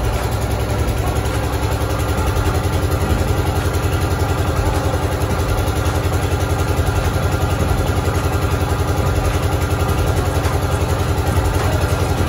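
Engine of the borewell rig's mud pump running steadily with a fast, even pulse, circulating muddy water through the hoses down the borehole during drilling.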